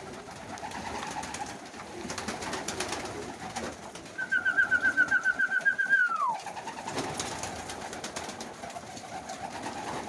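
Pigeons in a loft cooing and feeding at grain troughs, with wing flaps and pecking clicks. About four seconds in, a loud, high, rapid trill runs for about two seconds and drops in pitch at its end.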